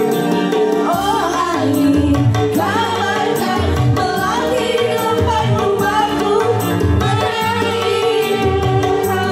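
Live amplified dangdut music: women's voices singing a melody together over organ tunggal keyboard backing with a steady bass and hand-drum rhythm.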